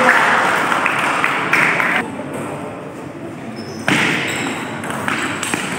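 Table tennis ball being struck by paddles and bouncing on the table in a rally, a quick series of sharp clicks starting about four seconds in. Before that, a hubbub of spectators' voices fades after about two seconds.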